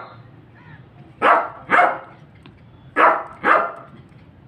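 Yorkshire terrier barking: four barks in two quick pairs, the second pair coming about a second and a half after the first.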